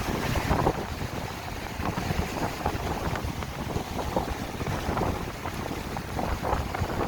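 Strong gusty wind buffeting the microphone, a rough low rumble, with sea waves washing on the shore beneath it.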